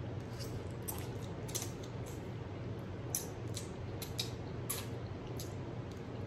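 Eating spicy stir-fried instant noodles: soft chewing and wet mouth sounds with about a dozen small, sharp clicks scattered through, over a steady low hum.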